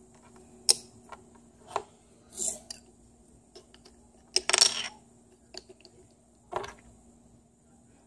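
Small plastic toy pieces clicking and clattering as they are handled and set down on a tabletop. There are several separate taps, and the loudest is a short rattle about four and a half seconds in.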